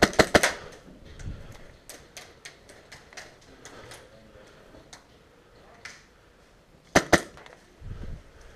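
HPA-powered airsoft rifle (Ares Amoeba AM-013 with a PolarStar Jack engine) firing: a quick string of about four sharp pops at the start, then two more about seven seconds in, with fainter scattered clicks in between.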